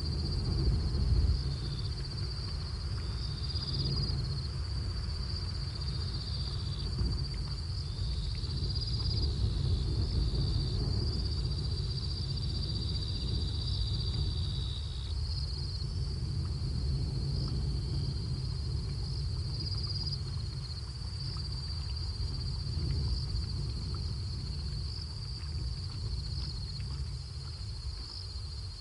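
Night-time insect chorus: several insects trilling steadily at a high pitch, overlapping, over a low steady rumble.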